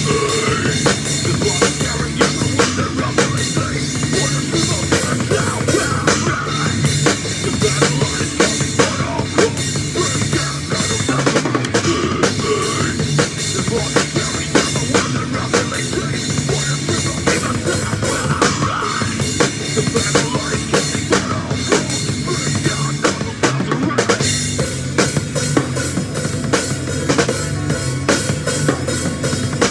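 Drum kit played in a rock beat with a band at a sound check, kick and snare hitting steadily over held low notes that change step by step.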